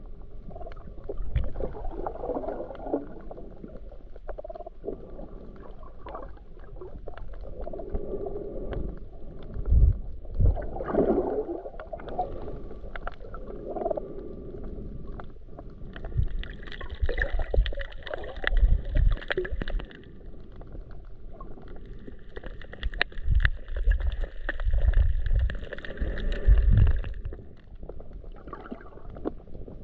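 Muffled underwater sound through a GoPro's waterproof housing: water gurgling and moving around the camera, with low thumps and scattered clicks. A higher droning tone comes in twice, for a few seconds each, in the second half.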